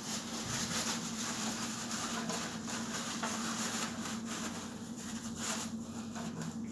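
Rubbing and rustling of tissue being wiped and handled around the water heater's element opening, over a steady low hum.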